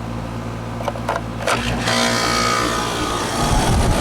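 4-ton Goodman condenser running with a steady low compressor hum after its run capacitor was replaced. A few light clicks come about a second in. Near the end a rushing air noise grows as the condenser fan, now getting a good capacitor, comes up to speed.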